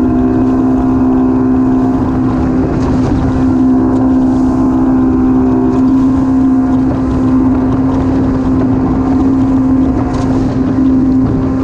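Motorboat engine running steadily at cruising speed, a constant drone, over the rush of water off the hull as the boat runs through the waves.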